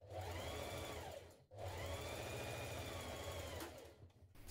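Singer electric sewing machine stitching a seam in two runs, about a second and then about two seconds, its motor speeding up at the start of each run and slowing down at the end.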